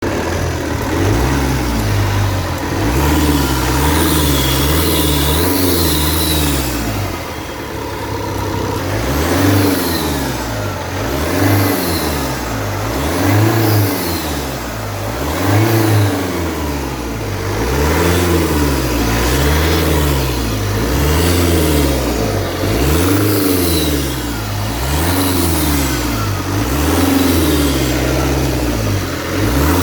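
Opel 1.9 CDTI turbodiesel engine being revved over and over, rising and falling about every two seconds after smaller, quicker swings at first. The revving brings out the intake noise that the uploader takes for an air leak in the intake.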